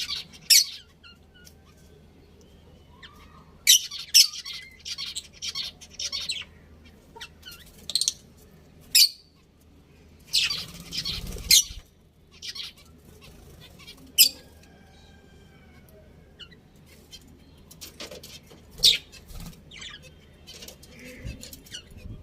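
Budgerigars chirping and squawking in short, loud, high-pitched bursts, about ten of them at irregular intervals, with quieter chatter in between.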